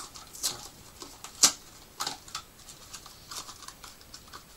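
Cardboard Colgate toothpaste box being handled and opened by hand: scattered crinkles, taps and clicks, the sharpest about a second and a half in.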